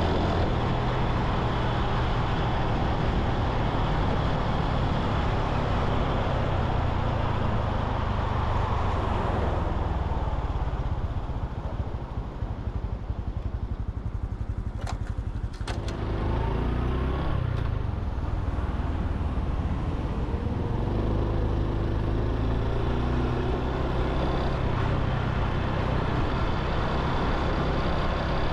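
Honda Super Cub C125's single-cylinder engine running along with wind noise. It eases off and quietens about ten seconds in, two sharp clicks come near the middle, and then the engine pitch rises as the bike accelerates back up to a steady run.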